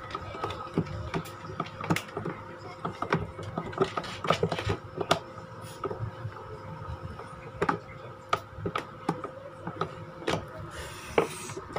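Screwdriver turning a screw up into a plastic electric-fan stand to fasten the motor bracket: a run of irregular small clicks and knocks of metal on plastic.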